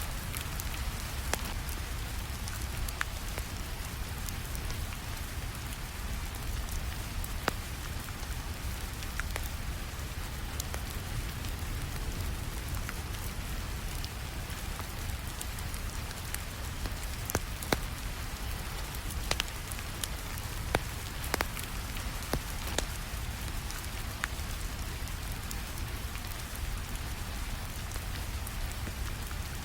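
Steady rainfall with a low rumble beneath, mixed with a wood fire crackling: sharp pops scattered throughout, a few of them louder past the middle.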